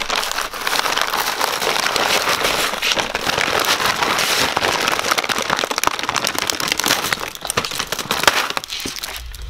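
A plastic bag full of zip ties crinkling and rustling as a hand rummages through it, a dense run of small sharp crackles that thins out near the end.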